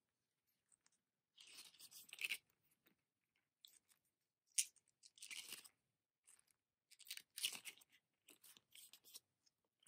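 Stiff card pages of a small spiral-bound photo book being turned by hand: four or five separate soft papery rustles and flicks, a second or two apart.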